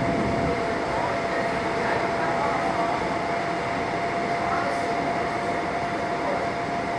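Seoul Subway Line 9 train car running, heard from inside the passenger car: a steady rumble and hiss of wheels on rail, with a thin steady whine above it throughout.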